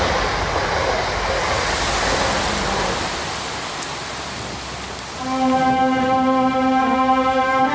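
Soundtrack opening: a steady rushing noise wash, then about five seconds in a single held bowed-string note enters and sustains.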